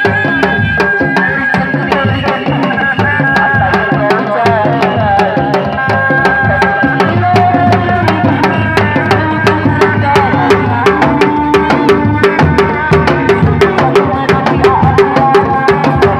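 Sundanese reak ensemble playing: dog-dog drums struck with sticks in a fast interlocking rhythm and a large barrel drum beaten by hand, with a held melody line that steps between notes above the drumming.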